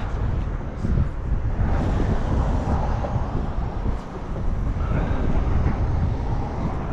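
Wind buffeting the microphone: a loud, steady rumble with gusty swells.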